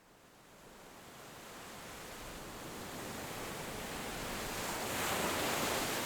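Ocean surf: a wave washing in, fading up from silence and swelling to its loudest about five seconds in, then easing back.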